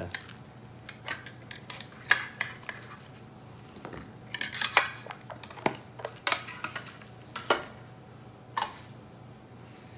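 Metal fidget spinners and round metal tins and lids clinking and clattering as they are handled and set down on a table: scattered sharp clicks with a little ringing, loudest about two seconds in and again around four to five seconds in.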